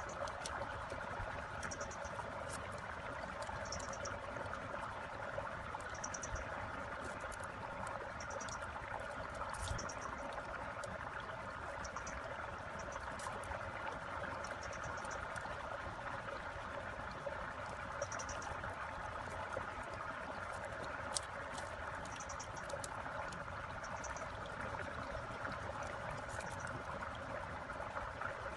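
Steady outdoor chorus of small calling animals, with short high chirps repeating every second or two. A few faint clicks of thin bamboo strips being handled stand out now and then.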